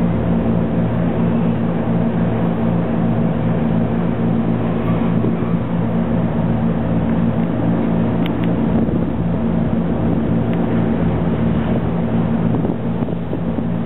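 A ship's engines running under way, a steady low drone with the rush of wind and water over the open bow deck.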